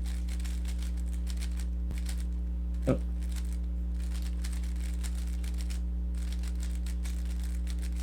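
Rubik's cube being turned quickly through an algorithm: rapid clicking and rattling of the plastic pieces, pausing briefly a few times. A steady low electrical hum sits underneath.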